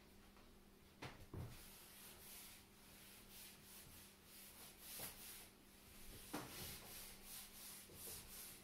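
Felt whiteboard eraser wiping marker off a whiteboard: faint, quick back-and-forth rubbing strokes, with a couple of light knocks about a second in.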